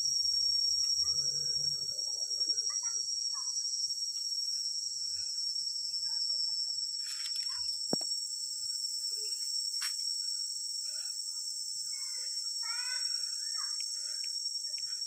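Tropical forest insects keeping up a steady, high-pitched chorus, with scattered short chirps over it.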